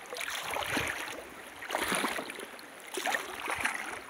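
Shallow river water sloshing and splashing in a regular rhythm, one splash roughly every second, as the water is stirred by repeated strokes.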